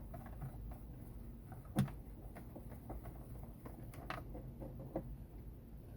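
Faint handling noises: a few light clicks and knocks over a low hum, the sharpest click about two seconds in.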